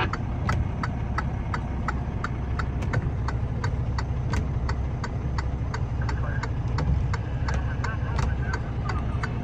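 Vehicle engine idling steadily, heard from inside the stopped vehicle, with an even ticking of about three clicks a second over it.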